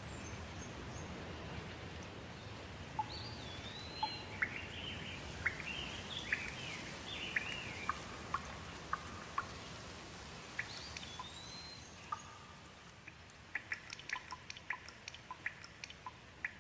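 Steady light rain with birds singing over it: a few short whistled, gliding phrases, then a quick run of short chirps near the end as the rain grows fainter.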